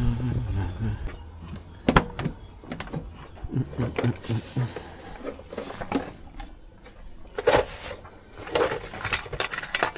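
Scattered clicks, knocks and rattles of metal parts being handled, with a sharp knock about two seconds in and a cluster of clinks near the end. A low rumble fades out over the first few seconds.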